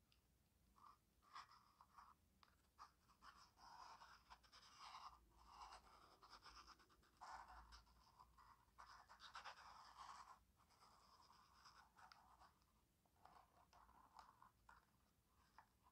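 Faint scratching and rustling of fingers and fingernails rubbing over the coarse glitter upper of a stiletto pump as it is turned and flexed in the hands, in short irregular strokes with brief pauses.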